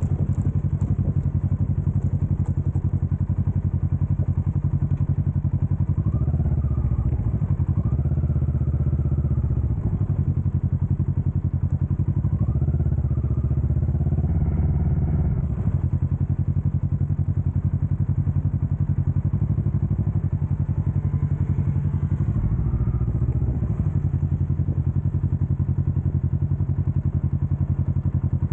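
Motorcycle engine running as the bike is ridden, heard from on board, rising in pitch as it accelerates several times, about a quarter, half and three quarters of the way through.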